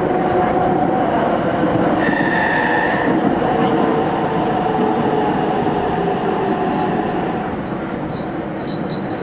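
Inside a Meitetsu 317F electric train running through a tunnel: a steady wheel-and-track rumble with motor tones sliding gradually downward as the train slows toward its terminal stop. A brief high squeal sounds about two seconds in, and the sound gets quieter near the end.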